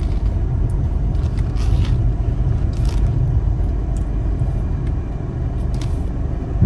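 Car running with a steady low rumble as it is moved.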